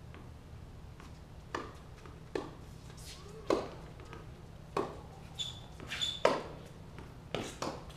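Tennis rally on a hard court: a string of sharp pops of racquets striking the ball and the ball bouncing, starting about a second and a half in, with two short high sneaker squeaks near the middle.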